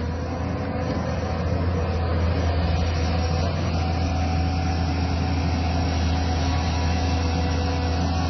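Heavy diesel engine of an excavator or tipper truck running steadily with a deep hum, building a little over the first second and then holding even.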